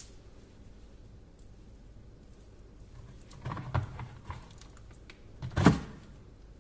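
Hard tapping and knocking while hardened chocolate stuck to a phone is pried at: a few small clicks and knocks about halfway through, then one sharp knock near the end, the loudest sound here.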